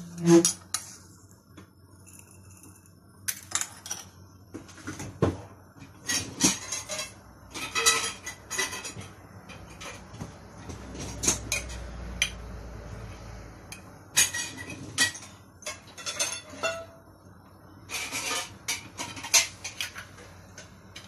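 Glass canning jars and metal lids and utensils clinking and knocking in irregular bursts as the filled jars of tomatoes are handled and closed. There is a steadier scraping stretch partway through.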